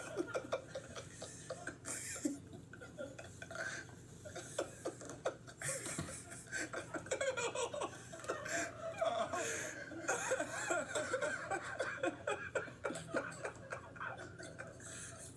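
Several men laughing and chuckling on and off, heard through a television's speaker.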